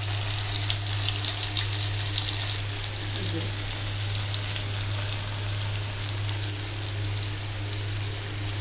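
Masala-marinated fish pieces sizzling and crackling as they shallow-fry in coconut oil. The crackle is busiest for the first couple of seconds, then settles to a steadier sizzle over a constant low hum.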